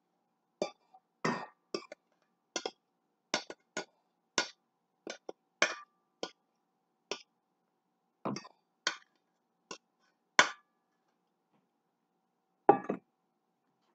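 A metal utensil clinking and scraping against a stainless steel mixing bowl as meatloaf mixture is knocked out of it: about twenty sharp clinks at an uneven pace, with a louder knock near the end.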